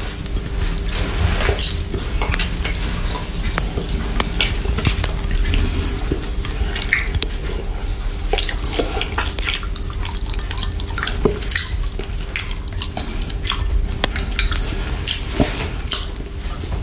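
Close-miked wet mouth sounds of licking and sucking a chocolate lollipop coated in whipped cream: many small, irregular wet clicks and smacks.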